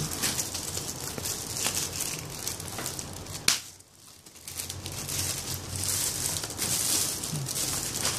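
Plastic packaging crinkling and rustling as a shrink-wrapped box is handled against a plastic mailer bag. There is one sharp tap about three and a half seconds in, followed by a brief lull.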